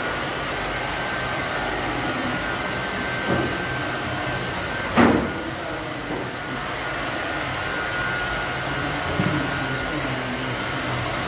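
Steady whir of a running electric air blower, with a thin high whine over it. A sharp knock comes about five seconds in, and fainter taps around three and nine seconds.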